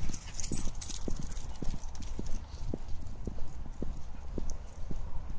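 Footsteps of a person walking at a steady pace, about two steps a second, over a low steady rumble.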